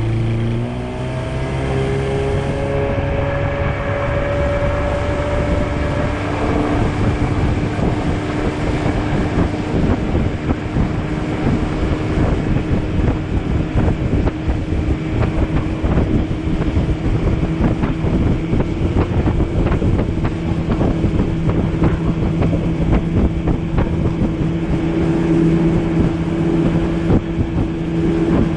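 Outboard motor on a jon boat speeding up, its pitch rising over the first few seconds, then running steadily at cruising speed. Many short, irregular knocks sound over the engine from about eight seconds in.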